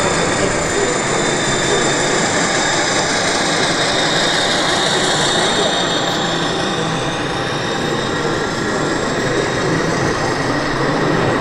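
A model train running on an exhibition layout, with a faint steady high whine, over the constant babble and bustle of a busy exhibition hall.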